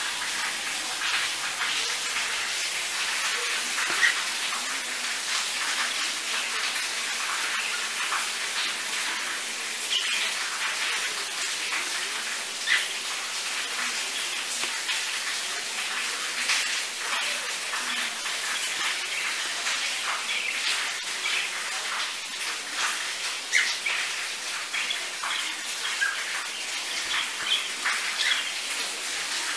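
Steady hiss of rain, with short chirps and squawks scattered through it from caged pet birds, cockatiels among them.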